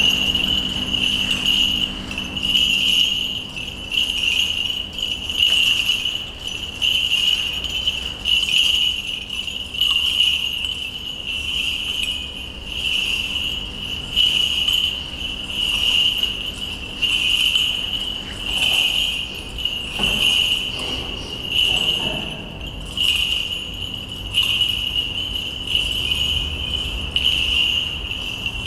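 Small bells on the chains of an Orthodox priest's swinging censer jingling steadily, swelling with each swing about every second and a half during the censing.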